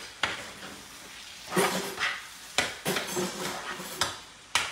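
A utensil stirring and scraping ground chorizo and beef in a metal skillet, knocking against the pan about seven times, with the meat sizzling underneath.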